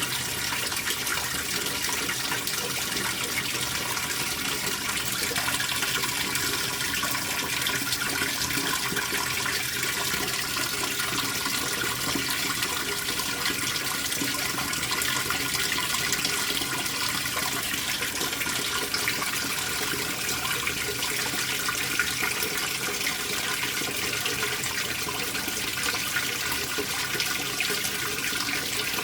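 Water running steadily into the tub of a Speed Queen top-loading washer as it fills.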